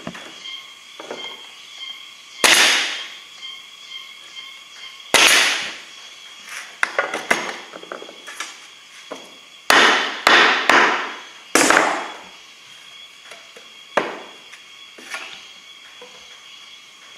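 Pneumatic nail gun firing nails into the wooden parts of a beehive box: about eight sharp shots, each trailing off briefly, at irregular intervals, with three in quick succession near the middle.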